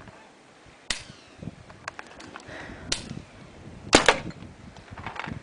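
Three sharp cracks: the first about a second in, the second about three seconds in and the loudest about four seconds in, with a few fainter ticks between them.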